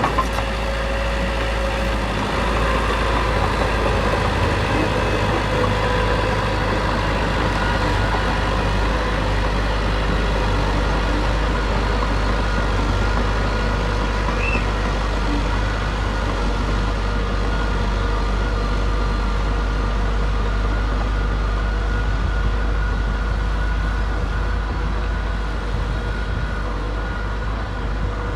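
Heavy diesel engine of earthmoving machinery running steadily under load, with a deep low rumble and a few held whining tones.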